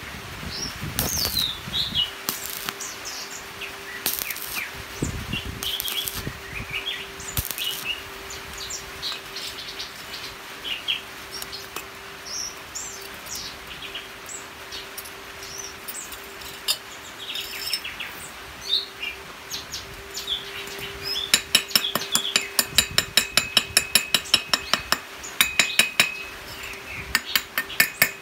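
Stick-welding arc on thin-walled round steel tube, crackling in short bursts through the first several seconds, over a steady hum. From about two-thirds of the way in, a chipping hammer taps rapidly on the weld, several blows a second, knocking off the slag.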